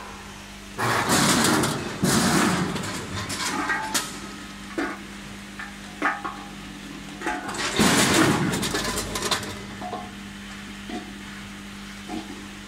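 Multihead weigher running: vegetable chunks clattering through its dimpled stainless-steel hoppers in three loud bursts, with sharp metal clicks in between, over a steady machine hum.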